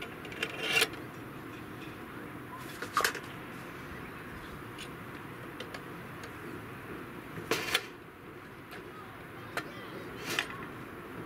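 Metal clicks and clacks of a rotisserie being fitted together, the steel spit rod and its forks knocking against the motor and the support bracket as they are slid into place. About four sharper knocks, spread out, with a few lighter ticks between them.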